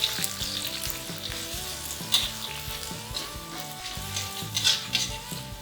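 Chopped garlic, red chilli and onion sizzling in hot oil while being stirred in the pan, with a few sharp scrapes or knocks of the stirring utensil against the pan.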